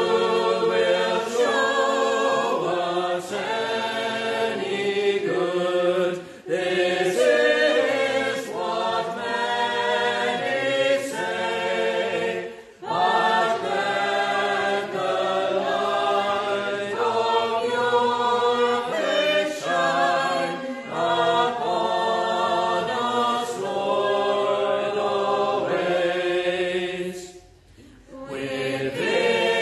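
A congregation singing a metrical psalm unaccompanied, in sung phrases with brief breaks between lines.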